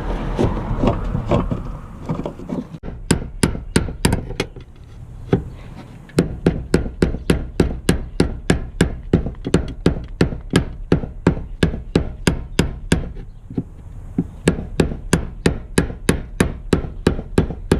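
Rapid, even hammer taps, about three a second, driving the fuel pump's threaded lock ring tight on the tank, with a short pause about three-quarters of the way through.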